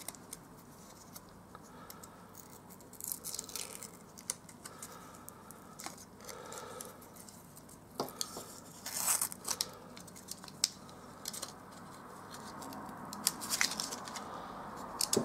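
Craft knife picking and scratching at the brown self-adhesive protective paper on a small acrylic case panel, with irregular scratches, ticks and short tearing sounds as the paper is lifted and peeled off.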